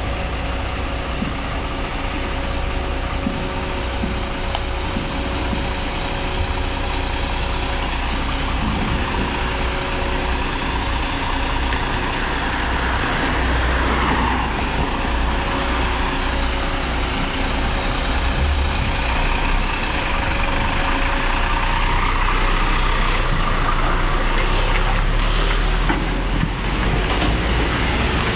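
Diesel engines of heavy articulated tanker trucks running at low revs as they pull out one after another: a steady low rumble, with an engine note that rises and falls about halfway through and a few short hisses near the end.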